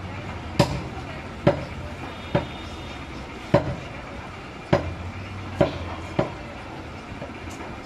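Seven sharp knocks at uneven intervals from knife work on a goat head on a butcher's chopping block, over a steady low background rumble.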